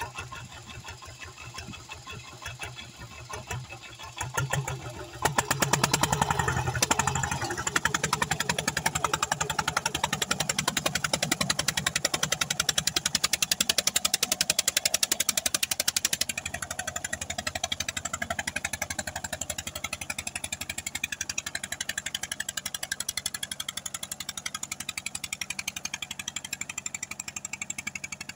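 Two-wheel tractor tiller's single-cylinder diesel engine chugging with rapid, even firing pulses as it works through flooded paddy mud. It gets much louder about five seconds in and drops back somewhat after about sixteen seconds.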